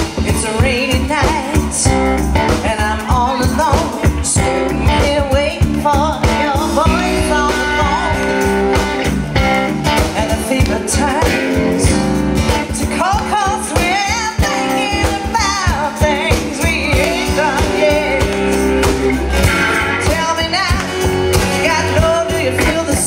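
Live band playing a rock-and-roll song: a singer over electric guitar and a steady drum beat.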